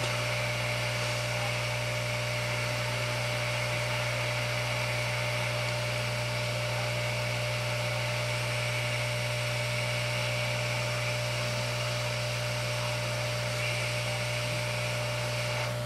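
Hot air rework station blowing steadily on an iPad Air 2 digitizer FPC connector, reflowing its solder so the connector settles flush on the board: an even airy hiss over a steady low hum.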